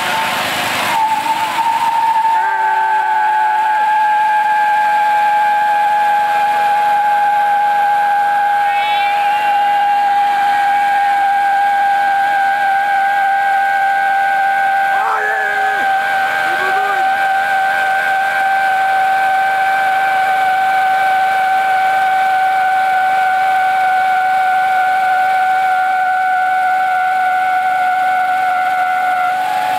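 Toro riding lawn mower's rear tires spinning in a chained-down burnout on bleach-wet pavement, with the engine running. The spinning tires give a steady high-pitched squeal that slowly falls in pitch.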